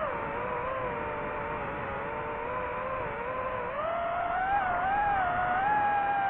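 DJI FPV drone's motors and propellers whining, several close tones together. The pitch sinks a little at first and climbs again about four seconds in as the throttle changes.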